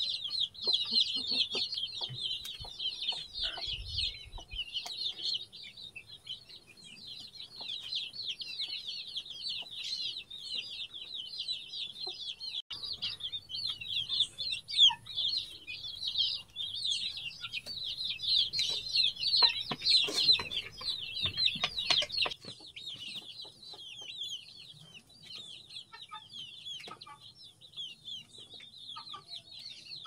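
A brood of newly hatched Kadaknath chicks peeping continuously: a dense, high-pitched chorus of short, falling cheeps.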